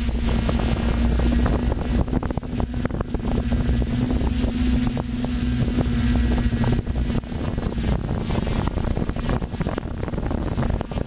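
FPV multirotor drone's motors and propellers humming steadily, recorded on the drone's own camera, with wind buffeting the microphone. The hum weakens about seven seconds in.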